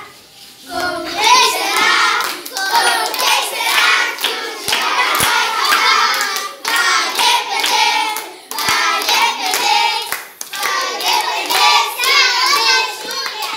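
A group of children singing a birthday song in Portuguese, clapping along.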